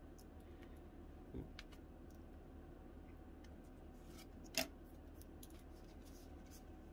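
Faint handling of Pokémon trading cards: a few soft clicks and taps as the cards are turned and shifted in the hands, the clearest about four and a half seconds in, over a low steady hum.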